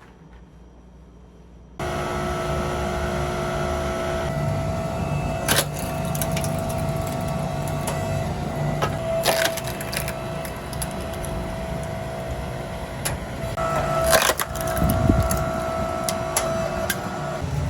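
A steady machine-like hum with a few fixed tones, starting suddenly a couple of seconds in, with occasional sharp clicks and knocks on top.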